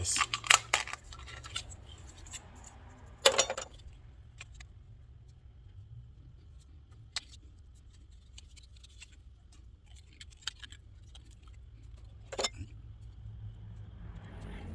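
Scattered clinks and rattles of pipe fittings and tools being handled, with sharper clatters in the first second, about three seconds in and near the end, over a steady low hum.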